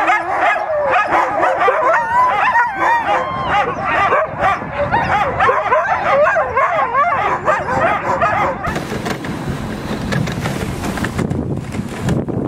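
A team of harnessed sled dogs howling and yipping together, many wavering cries overlapping. About two-thirds of the way through the cries cut off and give way to a steady rush of wind noise as the sled runs behind the team.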